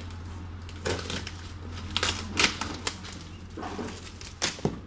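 Cardboard box flaps and a plastic bag rustling and crinkling as things are pulled from the box, in several short bursts, the loudest a little past two seconds in and near the end, over a steady low hum.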